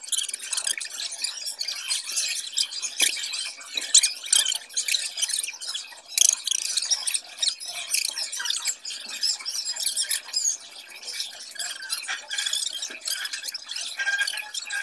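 A metal spoon scraping and squeaking against shaved ice and melon rind in a hollowed-melon dessert bowl, a quick run of short, high-pitched scrapes.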